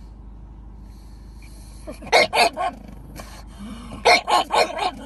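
Pug barking in short, sharp barks: a quick run of barks about two seconds in, a single bark a second later, and another rapid run about four seconds in.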